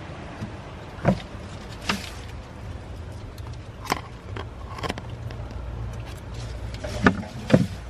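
Handling noise from opening a wooden hide box in straw bedding: a few scattered soft knocks and rustles over a low, steady rumble.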